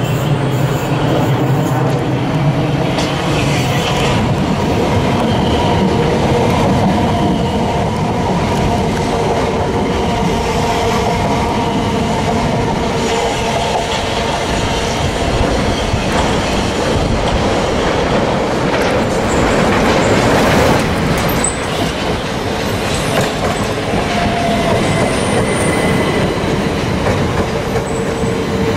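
Southern Class 377 Electrostar electric multiple unit running through the station close by, with wheels clattering over rail joints and a steady high whine over the rumble.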